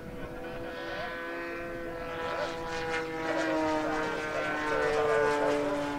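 Model aircraft's Laser 160 inline twin four-stroke glow engine running in flight with a steady propeller note. The pitch sinks slowly and the sound grows louder toward the end, peaking about five seconds in.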